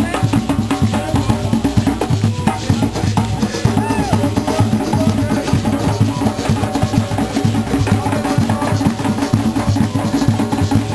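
Ensemble of hand drums playing a fast, dense rhythm together.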